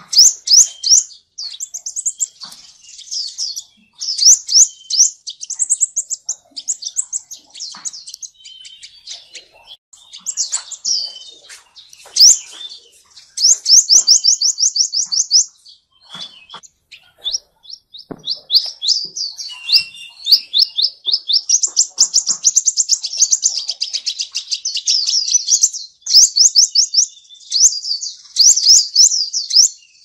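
Sunbirds singing: high-pitched twittering made of rapid trills of quick sliding chirps, in repeated bouts broken by short pauses.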